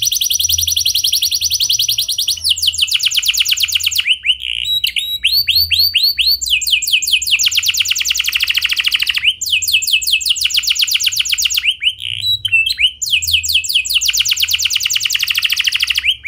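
Domestic canary singing long rolling trills: fast runs of the same high note repeated many times a second, switching to a new trill every second or two with hardly a pause.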